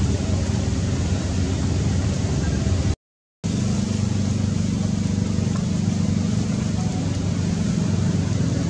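Steady low droning hum over a background noise haze, cut by a brief dropout to silence about three seconds in.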